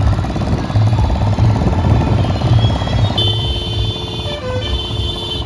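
Loud music with a heavy bass beat, with held synth-like notes coming in about three seconds in.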